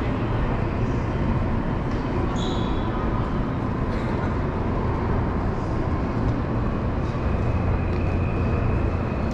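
Steady low rumble and hum of a large station's train platform beside a standing electric train, with a brief high beep about two and a half seconds in.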